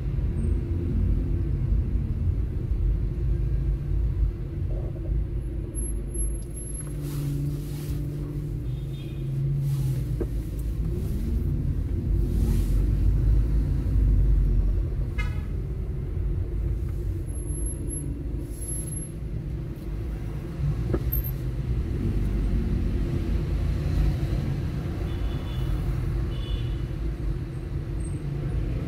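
Low, steady rumble of a car's engine and road noise heard from inside the cabin while creeping along in slow city traffic, with a short horn toot about nine seconds in.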